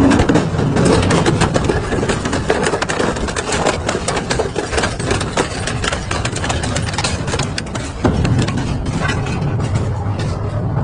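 Double-shaft industrial metal shredder running, a low machine hum under a dense, continuous stream of sharp cracks and snaps as metal is torn apart. The sound changes abruptly about eight seconds in.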